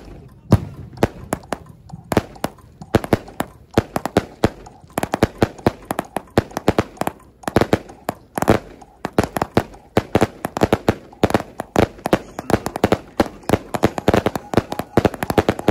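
Nuclear Sunrise fireworks firing, a rapid string of sharp launch pops and bursting reports, several a second.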